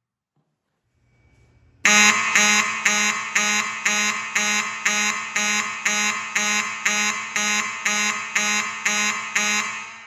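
Fire alarm horn sounding in march-time code, about two pulses a second. It starts abruptly about two seconds in.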